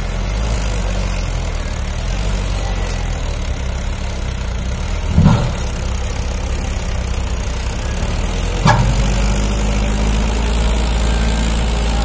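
Diesel engines of a Mahindra 575 DI tractor and a JCB backhoe loader running steadily under load as they pull and push a loaded trolley out of mud. Two short thumps come about five and nine seconds in, and the engine gets slightly louder after the second.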